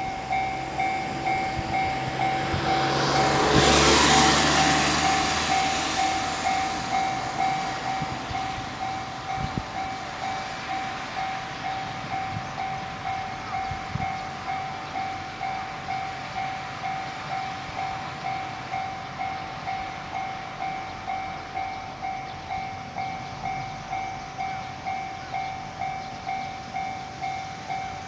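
Japanese level-crossing alarm bell ringing throughout with a steady repeating ding, while an E231 series electric commuter train passes. The train's rush is loudest about four seconds in and fades away by about seven seconds.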